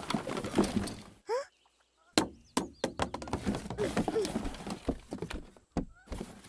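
Objects knocking and clattering as a wooden drawer is rummaged through, with several sharp knocks a couple of seconds in.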